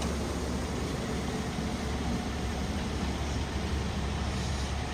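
Fire truck's diesel engine idling, a steady low rumble.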